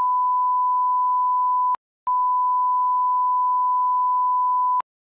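Censor bleep: a steady pure beep tone dubbed over speech. It breaks off for a moment just under two seconds in, then sounds again until shortly before the end.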